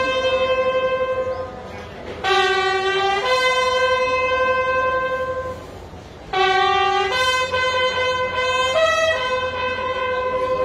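Bugle sounding a slow funeral call for a state guard of honour: a short lower note stepping up to a long held note, twice, then a brief higher note near the end before the held note returns. The notes are steady and clear, with short pauses between the phrases.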